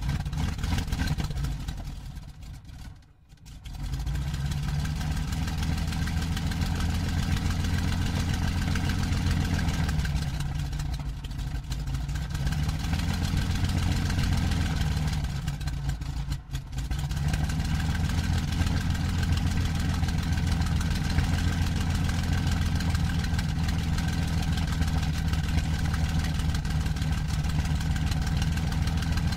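Daimler-Benz DB 605 inverted V12 aircraft engine of a Messerschmitt Bf 109G-2 being started, heard from the cockpit: the inertia starter engages with a short whine, then about four seconds in the engine fires and settles into a steady idle, with a brief dip in its note about halfway through.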